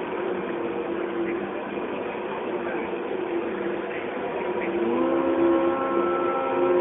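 Radio-control model tank running across a hall floor: a steady pitched whine of several tones that rises in pitch together about five seconds in and then holds, a little louder, over a background hubbub of a crowd.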